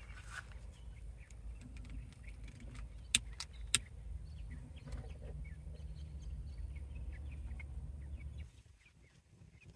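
Two sharp clicks about half a second apart, a few seconds in, from a long-nosed utility lighter being triggered at kindling wood in a smoker's firebox. Under them runs a low steady rumble with faint bird chirps, and the rumble drops away near the end.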